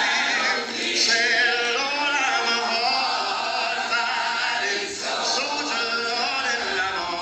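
An a cappella choir singing, the voices held with a wavering vibrato.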